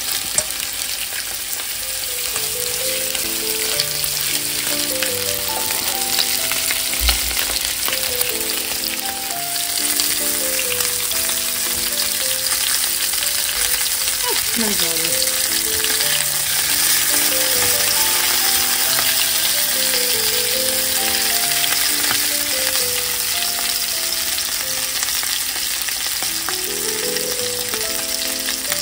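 Chicken pieces frying in hot oil in a nonstick pan, a steady loud sizzle that grows a little louder about ten seconds in as they brown.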